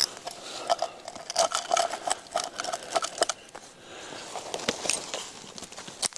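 Tin can scraping spruce pitch off tree bark: a run of quick scratchy scrapes and clicks, with a faint metallic ring from the can.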